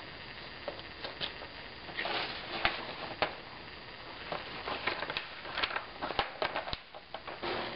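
Plastic bag crinkling and rustling in irregular crackly bursts as it is handled and pulled down over a head as a home-made blasting hood. It starts about two seconds in.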